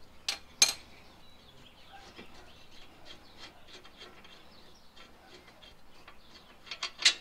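Sharp metallic clinks of hand tools, twice in quick succession just after the start, then faint handling noise, then a cluster of clinks near the end as the front brake caliper bracket with its pads is worked loose from the rotor.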